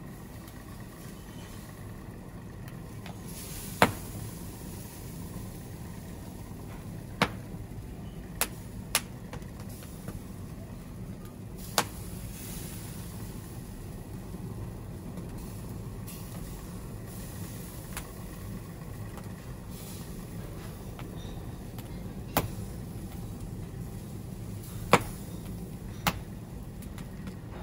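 Open wood fire burning behind spit-roasting chickens: a steady low rumble with sharp crackles and pops at irregular intervals of a few seconds, two of them much louder than the rest.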